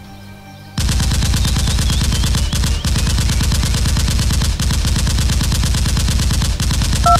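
Rapid automatic gunfire, one unbroken burst of fast shots that starts about a second in and stops near the end, laid over a toy blaster firing.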